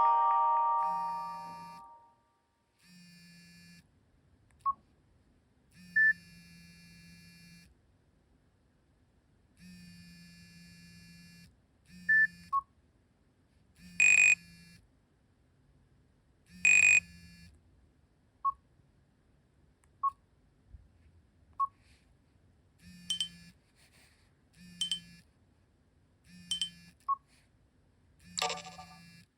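Nokia 5530 stock alarm tones. A mallet-like chime fades out in the first two seconds. Then come sparse short electronic blips and buzzy tone bursts with pauses between them, and near the end a run of short beeps repeating about every one and a half to two seconds.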